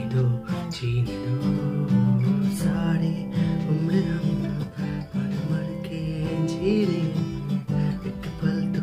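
Background music led by a strummed acoustic guitar, playing steadily.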